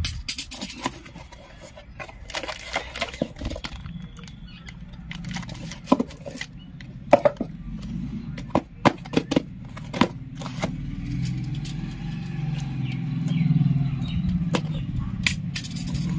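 Cardboard boxes and a plastic-wrapped toy being handled and set down, giving a run of sharp taps, clicks and rustles. From about ten seconds in, the low hum of an engine builds in the background.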